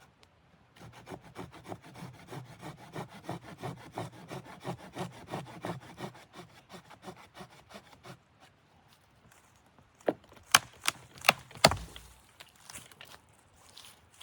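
Wood being sawn by hand in quick, even strokes for several seconds. It is followed by a quick run of five or six sharp knocks, which are the loudest sounds here.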